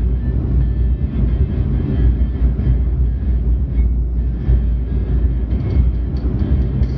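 Steady low road and engine rumble inside the cabin of a car driving at speed.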